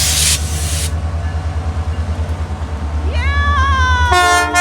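Diesel locomotive of the CP Holiday Train running with a steady, pulsing low rumble. A burst of air hiss comes in the first second, and near the end the locomotive's air horn sounds a multi-note chord.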